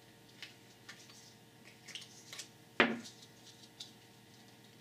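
Small clicks and scrapes of hands prying and twisting at an LED corn cob lamp's housing to free its siliconed-in driver circuit, with one sharp, louder click a little under three seconds in.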